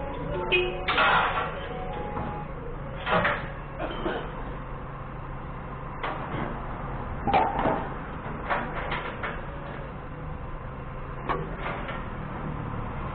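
Steel lifting chains clanking and rattling against the car lift's steel frame as they are handled, in irregular clanks every second or two. A steady low engine hum runs underneath, the forklift's diesel idling.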